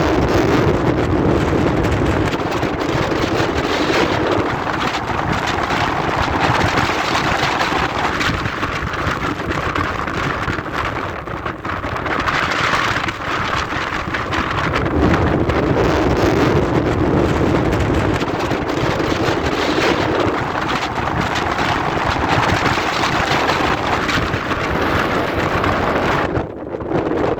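Strong storm wind blowing hard over the microphone, a loud continuous rush that surges and eases in gusts every few seconds, dipping briefly near the end.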